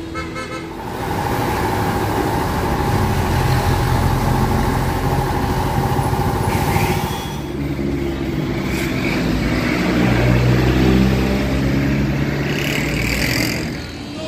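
Honda CRF150L single-cylinder four-stroke engine running through its exhaust, revved up in two long pulls with a short drop in revs about halfway.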